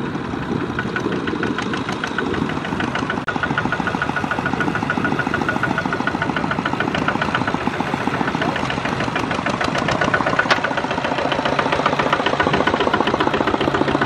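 Farm tractor's diesel engine running steadily under load while its rear rotary tiller churns through wet paddy mud, with a fast, even ticking over the engine. It gets louder about three and a half seconds in.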